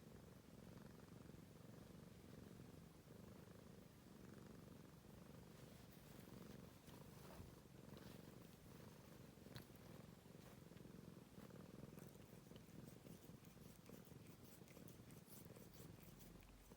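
Domestic cat purring quietly and steadily, with short soft clicks of its tongue licking skin from about a third of the way in.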